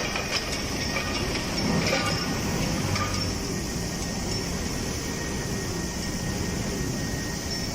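Aluminium tilting rotary furnace plant running: a steady low rumble with hiss, and a few metallic clanks in the first three seconds.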